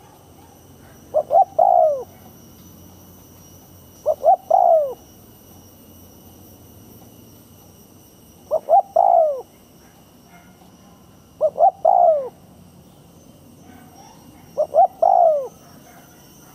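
Spotted dove cooing: five calls, each two short coos followed by a longer falling coo, repeated every three to four seconds.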